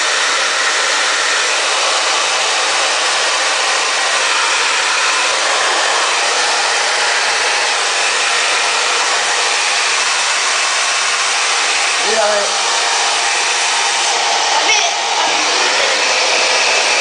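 Handheld hair dryer running continuously, blowing a steady, loud rush of air with its fan motor whirring evenly.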